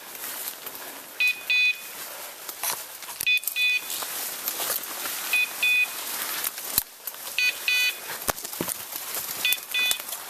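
Hunting dog's beeper collar in point mode, sounding a double beep about every two seconds: the signal that the Brittany is standing on point.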